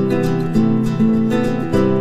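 Background music of plucked guitar, single notes picked one after another every few tenths of a second.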